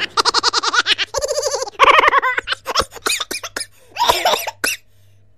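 Laughter in quick, repeated pulses for about two seconds, then thinning out into scattered short bursts.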